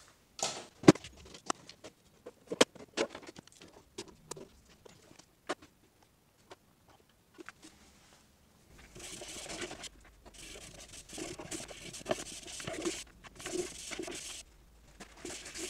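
Scattered clicks and knocks as the front panel of a Sony TA-70 integrated amplifier is fitted back on. From about halfway a cloth rubs over the amplifier's wood-veneer case in uneven wiping strokes.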